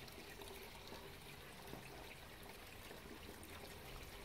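Faint, steady background noise with a trickling-water character and no distinct events.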